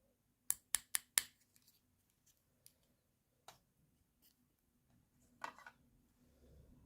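Sharp clicks and ticks of small hard plastic toy pieces being handled: four quick clicks about half a second in, a single tick later, then a short cluster of clicks near the end.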